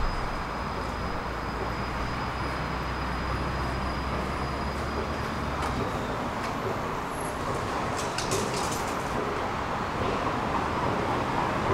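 Steady outdoor road-traffic noise. A low hum underneath stops about halfway through, and a few faint clicks follow later.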